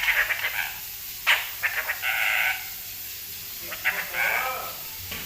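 Pet parrot mimicking a human cough: several short, rasping cough-like bursts in three groups.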